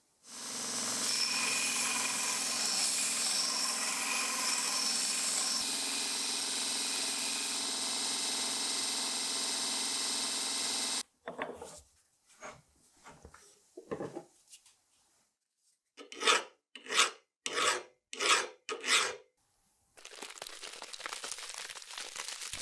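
Electric belt grinder running with an old iron axe head pressed against its abrasive belt, a steady loud grinding hiss over the motor's hum that cuts off suddenly about 11 seconds in. Then a hand file working the axe head clamped in a vise: a few scattered scrapes, six sharp rasping strokes about two a second, and a steadier rasp near the end.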